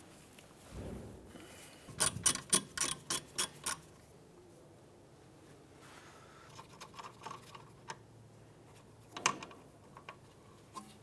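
Hand ratchet clicking in a quick run of about ten clicks as a rear hub mounting bolt is backed out. After a pause come a few fainter clicks and one more sharp click.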